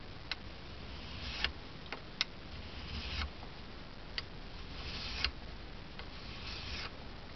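A fine-toothed file swiped across the side of a Norwalk juicer cutter blade to sharpen it: about four slow rasping strokes, each ending in a sharp click, with a few lone clicks between.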